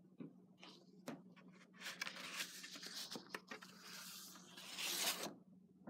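Packaging being torn open and unwrapped by hand: irregular rustling and tearing with a few small clicks, getting louder just before it stops near the end.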